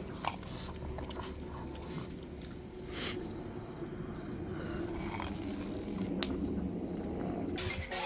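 Steady outdoor night background with a high, even insect trill and a low rumble, broken by a few faint clicks.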